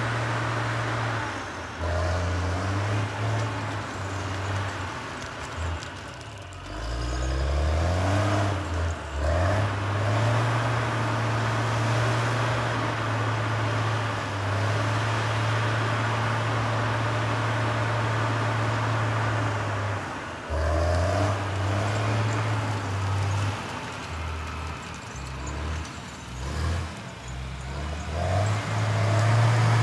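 Caterpillar 535C grapple skidder's diesel engine working under load as it drags logs, its pitch shifting up and down with the throttle and rising in several revs. It grows louder near the end as the skidder comes closer.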